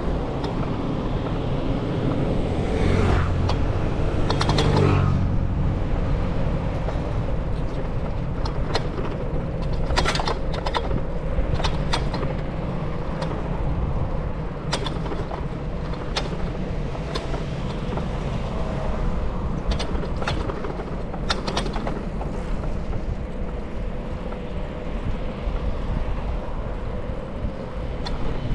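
Bicycle ride noise: a steady low rumble with scattered sharp clicks and rattles. Something louder swells and passes about three to five seconds in.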